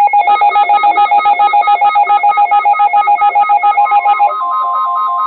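Electronic emergency alert tones between weather warnings: a loud, rapidly pulsing beep, about seven beeps a second. A bit before four seconds in, a steady single tone joins and the pulsing beeps shift to a different pitch.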